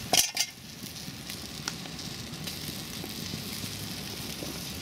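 Sausages sizzling on a wire grill grate over a wood fire, with a few faint crackles. A brief loud noise comes about a quarter of a second in.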